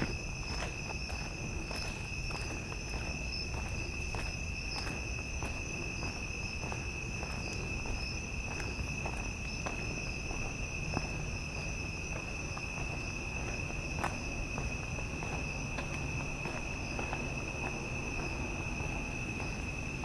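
A steady chorus of night insects, an unbroken high trill at two pitches, with a person's footsteps ticking softly underneath at an even walking pace.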